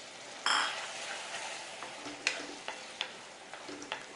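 Raw chicken pieces going into a hot pan of cooked-down tomato masala: a sharp sizzle about half a second in, then steady frying hiss as a spoon stirs, knocking against the pan a few times.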